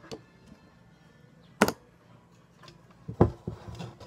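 A plastic rice cooker being handled on a workbench: a single sharp click about a second and a half in, then a couple of knocks about three seconds in, with quiet between them.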